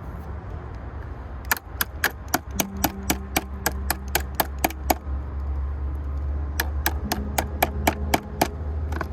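A hand tool working on truck parts: rapid, evenly spaced sharp clicks or taps, about four to five a second, in two runs with a pause between them, over a steady low hum.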